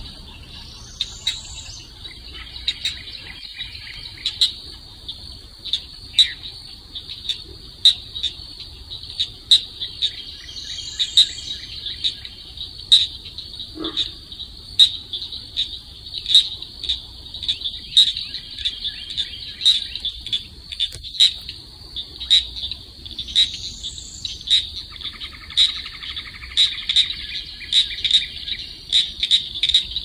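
Swamp wildlife chorus: insects trill steadily at one high pitch, frogs give sharp clicking calls that come faster toward the end, and a bird calls three times.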